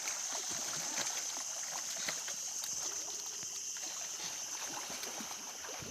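Steady hiss of water trickling and washing around a small boat, with scattered faint clicks.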